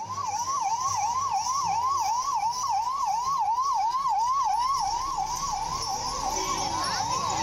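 Ambulance siren sounding a fast, steady yelp, its pitch sweeping up and back about three to four times a second.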